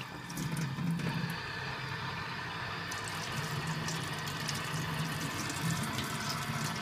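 Tap water running steadily into a stainless-steel kitchen sink, splashing over hands held under the stream.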